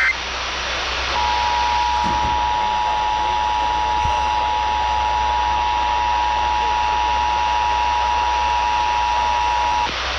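Emergency Alert System two-tone attention signal, two steady tones sounding together, held unbroken for about nine seconds over radio hiss, starting about a second in. It is the alert tone that opens a Required Monthly Test.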